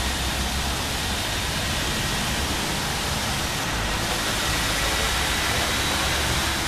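Steady hiss of car tyres on a rain-wet road, with a faint, steady high whine above it.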